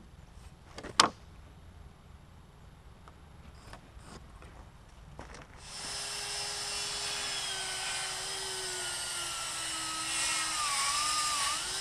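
A single sharp knock about a second in. From about halfway a motor starts running steadily, its pitch falling slowly and wavering near the end.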